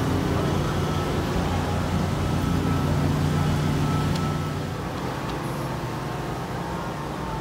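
An engine running steadily with a low hum, over outdoor street noise; the hum drops a little in level about four seconds in.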